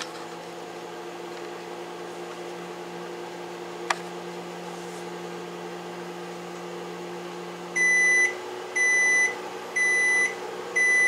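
Samsung ME16A4021AS over-the-range microwave running a short test cycle: a steady hum with a single click about four seconds in, then four high beeps about a second apart signalling the end of the cycle.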